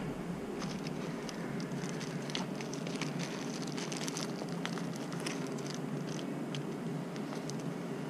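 Small parts and a plastic-packaged part being handled: scattered light clicks and a crackling rustle over a steady background hum.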